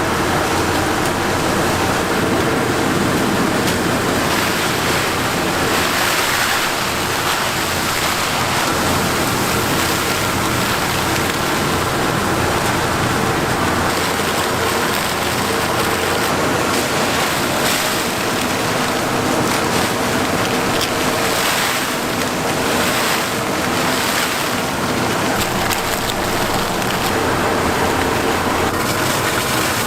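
Steady rushing roar of a commercial Chinese-Korean kitchen, the high-flame gas wok burners and extractor hood used to stir-fry jjamppong, with faint steady hums running underneath.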